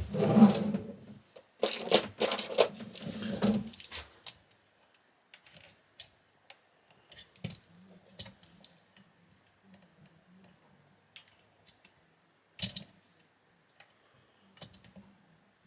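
Metal tools and parts being handled on a workbench while a high-voltage junction box is taken apart: a burst of clinking and rattling in the first four seconds, then scattered small clicks and one sharp knock near the end.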